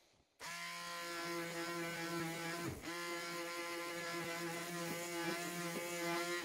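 Small handheld electric power tool running steadily against a rusty steel strip, taking off the rust. It starts about half a second in, and its pitch dips briefly and recovers about halfway through.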